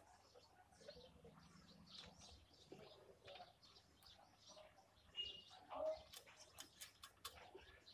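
Faint chirping of small birds, with a few light sharp clicks near the end as the nut on the IC's heatsink is handled.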